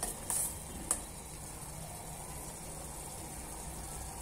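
Sugar syrup boiling in a pot on the stove, a steady bubbling hiss with a few brief ticks in the first second; it is being cooked down toward one-string consistency.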